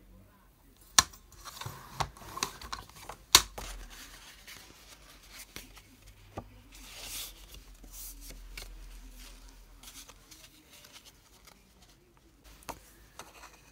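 Card stock scored on a Fiskars paper trimmer, with two sharp clacks about one and three and a half seconds in and a scraping rustle between them, then the scored card folded and handled with quieter paper rustling and small clicks.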